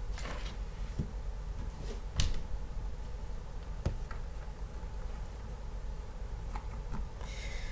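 A few light clicks and knocks of small parts and tools being handled and set down while putting things away, over a steady low background hum.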